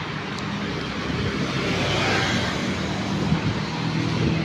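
Road traffic on a city street: the running engines and tyre noise of passing vehicles, swelling a little around the middle as one goes by.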